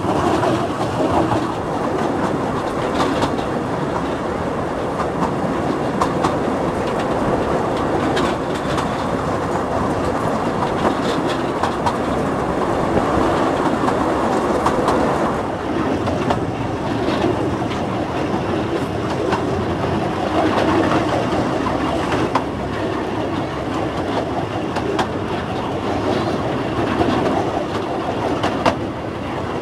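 Deutz OMZ 117 narrow-gauge diesel locomotive hauling skip wagons, heard from the train: the engine running steadily under the wheels clicking over rail joints.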